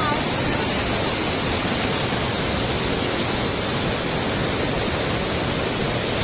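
Floodwater of the swollen Godavari River rushing past, a steady, even wash of water noise.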